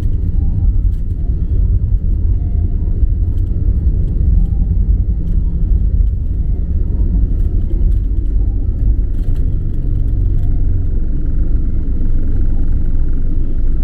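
Airbus A320neo engines and airflow at climb power just after takeoff, heard inside the passenger cabin as a loud, steady low rumble with faint steady tones above it.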